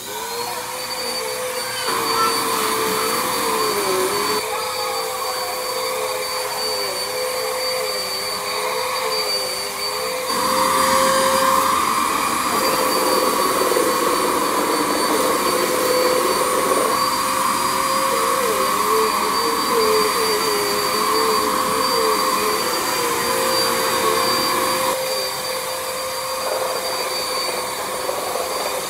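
Bissell PowerForce Compact upright vacuum cleaner switched on and running over a rug, its motor whine rising as it spins up at the start, then wavering and dipping now and then. It has a clog inside, and the owner thinks it sounds like a clog.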